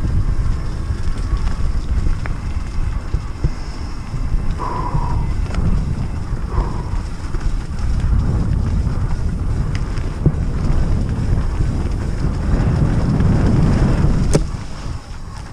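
Wind buffeting the microphone over the rumble of a bike riding fast down a dirt trail, with a sharp knock near the end after which the noise eases.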